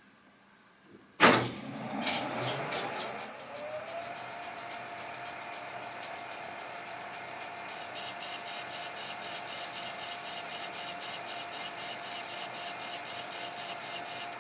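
Colchester 1800 geared-head lathe starting with a sudden clunk about a second in, its whine rising as the spindle comes up to speed and then running steadily. From about eight seconds in, a fast regular ticking joins as the tool cuts the end of the aluminium tube.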